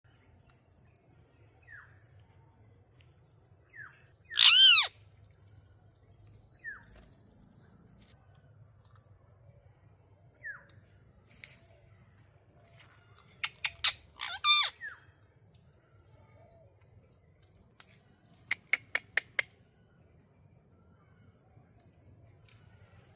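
Indian ringneck parakeet calling: a few soft, short chirps, one loud screech about four and a half seconds in, a burst of loud squawks around the middle, and a quick run of about six short calls near the end.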